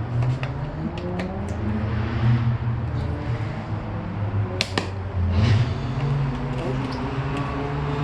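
Scattered sharp clicks and taps of hand tools and plastic fairing panels being worked loose, the sharpest about three-quarters of the way through. Under them runs a steady low engine hum whose pitch drifts slightly.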